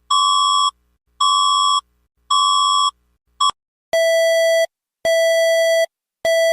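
Electronic emergency-alert alarm tone with a buzzy timbre: three beeps of about half a second at one pitch, a very short blip, then three slightly longer beeps at a lower pitch.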